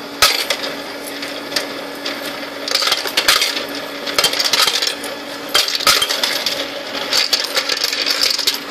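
MagNif Accu Wrapper electric coin sorter running with a steady hum as coins are dropped into its hopper by hand. The coins clatter and rattle through the sorter into the coin tubes in repeated bursts, one for each handful.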